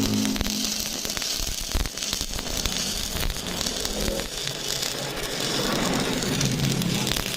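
Electric arc welding: the arc crackling and sizzling steadily, with a faint low hum that comes and goes underneath.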